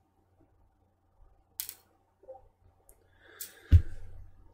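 A few sharp clicks as small screws are set down on a MacBook Pro's aluminium bottom case, with a short scrape, then a dull thump near the end.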